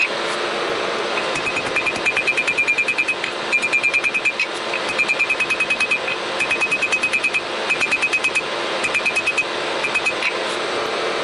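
Hand hammer striking a red-hot steel bar on an anvil, forging it into a knife blade: quick runs of about eight to ten blows lasting about a second each with brief pauses between them, every blow with a high ring from the anvil. A steady rushing noise runs underneath.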